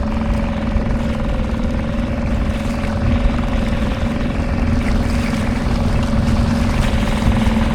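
Dinghy outboard motor running steadily under way, a constant hum over a low rumble of water and hull noise.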